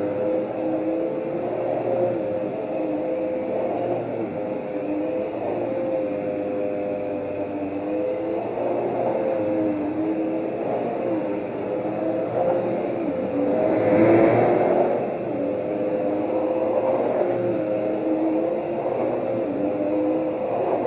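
Vacuum cleaner running steadily, its motor hum wavering a little in pitch, with a brief louder swell about two-thirds of the way through.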